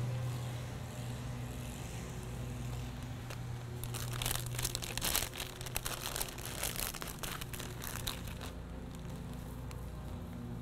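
Dry Spanish moss crackling and rustling as pieces are pulled apart and pressed into potting soil by hand, in busy clusters that are densest from about four to eight seconds in. A steady low hum runs underneath.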